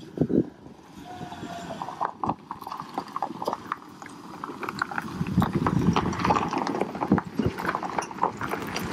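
Footsteps on pavement and handling knocks from a hand-held camera being walked along, an irregular run of sharp clicks and knocks.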